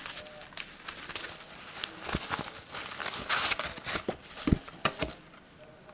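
Rustling and sliding of the Selens colour gel filter cards as they are handled in their fabric pouch, with a few knocks.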